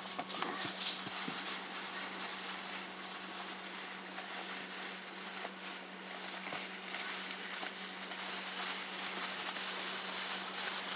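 Borax powder pouring steadily out of its cardboard box into a plastic tub: a continuous sandy hiss with a few faint ticks. A low electrical hum runs underneath.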